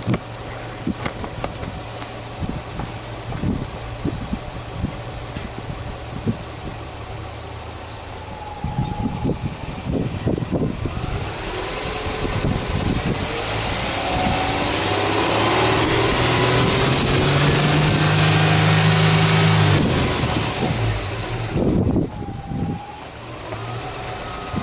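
Subaru Forester 2.0XS's flat-four boxer engine, heard at the open engine bay, idling and then revved in neutral. After a short blip, the revs climb and are held high for several seconds, then drop back to idle with one more brief blip near the end.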